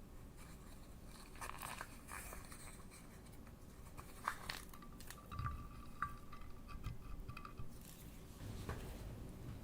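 Slime being handled: faint crackles and small sticky clicks, scattered and irregular.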